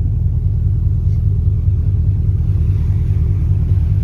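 A ship's engines running steadily while the vessel is under way, a loud, even low hum and rumble.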